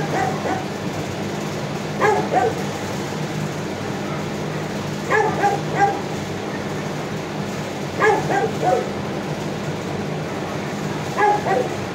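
A dog barking in five short bouts of two or three barks each, one bout about every three seconds, over a steady low hum.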